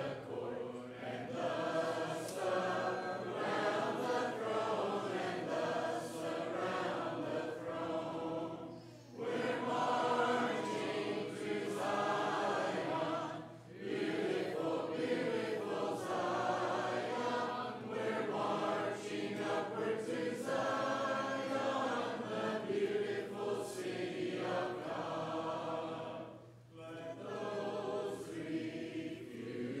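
Church congregation singing a hymn together a cappella, voices only, led from the front. The singing runs in phrases with short breaks for breath about nine, thirteen and twenty-seven seconds in.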